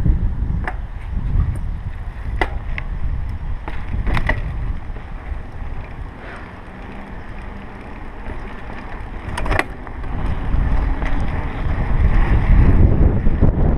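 Riding a bicycle on pavement, heard from a chest-mounted GoPro: wind buffeting the microphone over a low tyre rumble, with a few sharp clicks and rattles from the bike. It eases off in the middle and gets louder again for the last few seconds.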